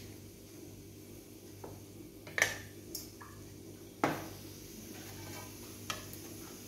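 A spatula clinking and scraping against a steel plate and an aluminium pot while soft dough is scooped out: a few sharp clinks, the loudest about two and a half seconds in and another at about four seconds.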